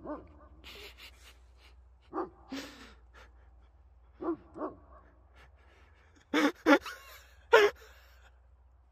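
A dog barking in short barks, mostly in pairs a couple of seconds apart, loudest near the end.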